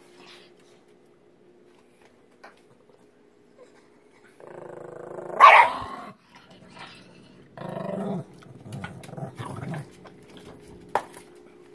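Small dog growling over its food bowl, starting about four seconds in and rising to a sharp snarling snap, then two more bouts of growling: food guarding against another dog.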